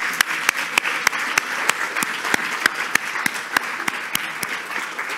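Audience applauding, with one person's hand claps close to the microphone standing out at about three a second; the applause dies down near the end.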